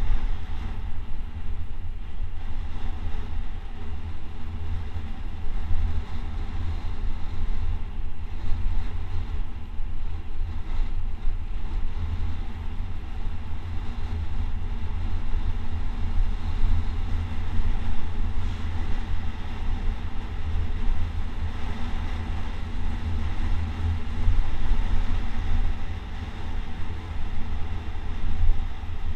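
Wind rushing over the microphone in a steady, heavy low rumble, with road noise from a fast downhill run on rough, patched asphalt.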